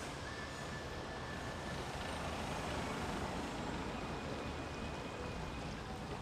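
Street traffic: a steady rush of passing vehicles that swells a little about halfway through.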